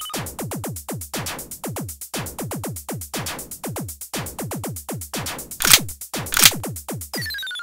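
Electronic background music with a fast drum-machine beat: rapid drum hits that drop in pitch, and two louder, noisier hits near the end.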